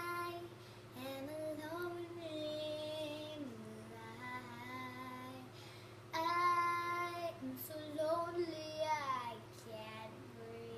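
A young girl singing unaccompanied, holding long notes that slide up and down in pitch, loudest past the middle, over a steady low hum.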